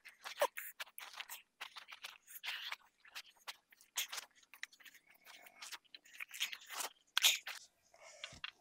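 Hands kneading and squeezing a crumbly mixture of roasted beaten rice (aval) and peanuts against an aluminium pan: faint, irregular crackly crunching and scraping.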